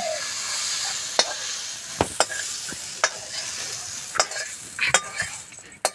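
A metal spatula scraping and knocking against a metal kadai (wok) as cooked vegetables are scraped out of it into a bowl, with a series of sharp, irregular knocks. Under it is a hiss of faint sizzling from the hot pan that dies down toward the end.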